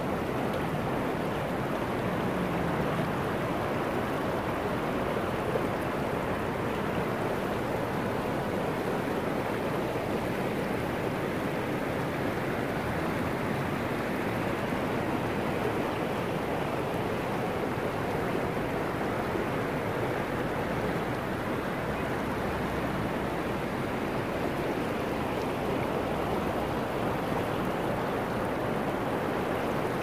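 Shallow river running fast over boulders: a steady, even rush and gurgle of water.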